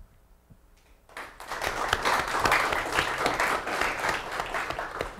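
Audience applauding, the clapping starting about a second in.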